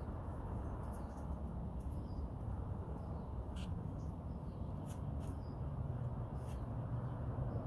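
Steady low outdoor rumble, with a few brief, faint high chirps a few seconds in.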